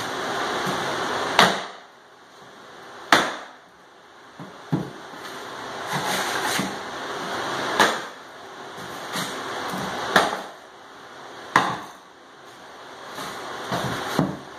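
A sledgehammer hitting wooden 2x4 wedges driven under stapled particle-board underlayment to pry it up off the subfloor. About five hard wooden blows land a second or two apart, with lighter knocks in between.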